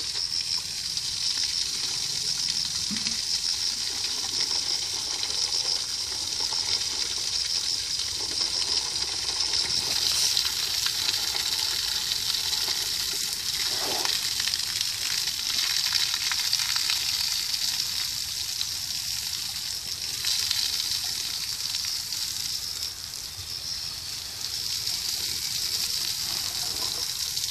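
A jet of water spraying onto an elephant's head and back: a steady hiss and splatter of spray, with water streaming off the animal.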